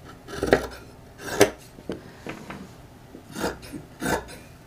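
Scissors snipping through the seam allowance of a sewn fabric pocket, a handful of short, irregularly spaced cuts with the metal blades clicking shut.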